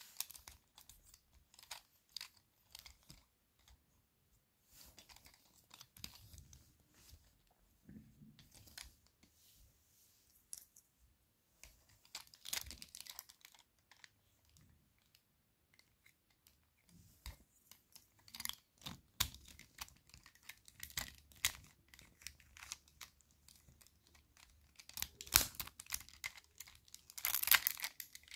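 Plastic pieces of a Pyraminx puzzle clicking and scraping as they are handled and fitted back together, in scattered irregular bursts that are busiest about twelve seconds in and again near the end.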